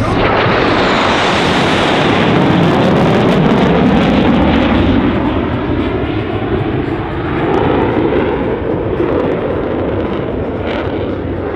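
Jet noise from United States Air Force Thunderbirds F-16 Fighting Falcon fighter jets passing during a low-level flight manoeuvre. The noise swells quickly at the start, eases about seven seconds in, and swells again.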